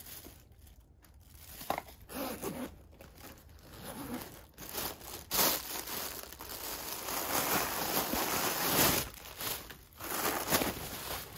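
Plastic bubble wrap and plastic bags crinkling and rustling as wrapped items are pushed into a nylon backpack, in irregular handling bursts that are loudest and most continuous in the middle.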